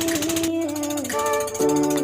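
Background music: a melody with plucked guitar-like notes over a steady beat.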